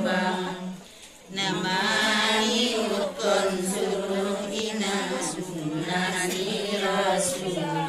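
Women's group singing a kasidah in the Mandailing language, unaccompanied, a lead voice on a microphone with the others chanting along in unison. There is a brief break for breath about a second in.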